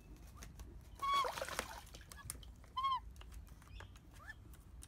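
Australian magpies giving several short calls that arch or rise in pitch, with a burst of water splashing about a second in as one bathes in a shallow tub of water.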